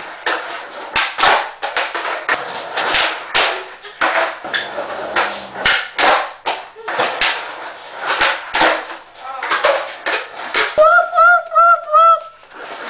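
Skateboard doing flip tricks on a concrete floor: a steady run of sharp cracks and slaps as the tail pops and the board and wheels come down. Near the end, a person's voice gives four short rising-and-falling calls.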